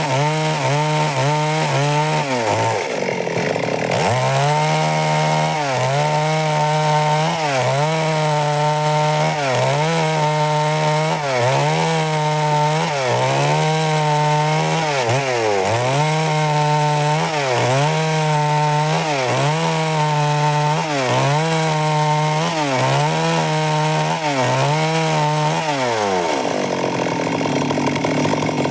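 Stihl MS 382 two-stroke chainsaw cutting wood, its engine note dipping under load and recovering about every second and a half. Near the end the engine note drops away.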